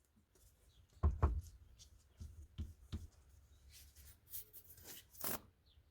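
Small objects being handled at a workbench: a few separate light knocks, taps and scuffs, the loudest about a second in and one more near the end.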